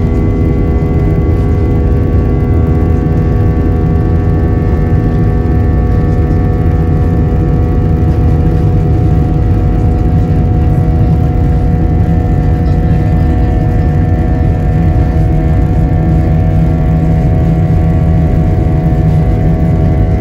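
Inside the cabin of an Airbus A320-200, the jet engines run with a heavy, steady rumble and a layer of steady whining fan tones as the airliner rolls along the ground.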